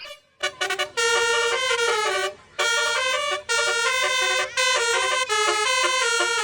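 Basuri bus horn, a multi-trumpet telolet air horn, playing a tune as short phrases of stepped notes with brief breaks between phrases.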